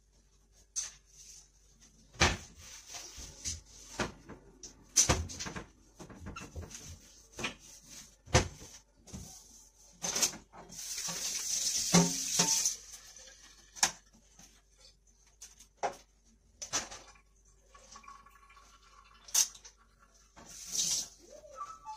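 Kitchen cleaning at a stainless steel sink: scattered knocks and clatters of items being picked up and set down, with a burst of running water for about two seconds a little past halfway.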